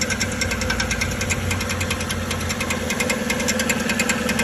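2013 Chevrolet Silverado 1500's 5.3-litre V8 idling with a fast, even knocking tick over its steady hum. The customer had taken the knock for a cracked flywheel or an internal engine problem.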